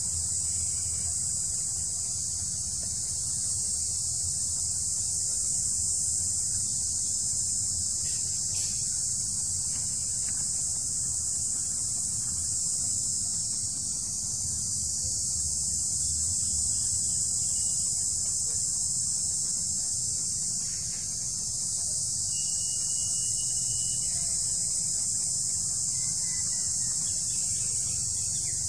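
Steady, high-pitched insect chorus that drones on without a break, with a low steady rumble underneath and a short faint chirp near the end.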